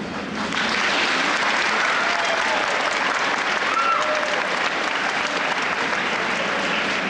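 Audience applauding, starting about half a second in, with a few voices calling out over the clapping.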